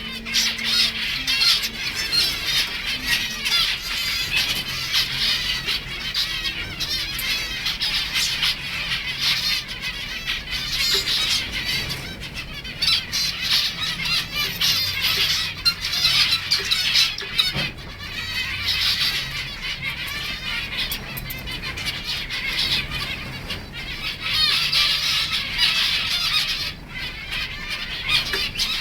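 Many zebra finches calling together: a continuous, dense chatter of short, overlapping high calls.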